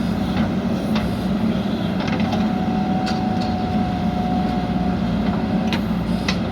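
JCB backhoe loader's diesel engine running steadily under work, with scattered short knocks and clanks. A thin steady whine joins from about two and a half seconds in and stops shortly before the end.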